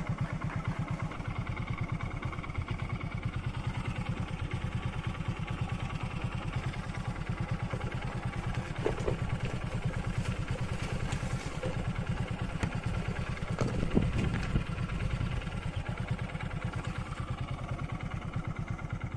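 Motorcycle engine running steadily with a rapid, even exhaust beat as the bike is ridden.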